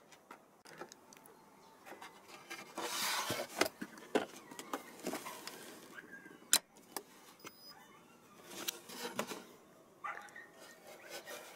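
Handling noises: a scatter of clicks, knocks and rustling, with a longer rustle about three seconds in and one sharp click a little past the middle.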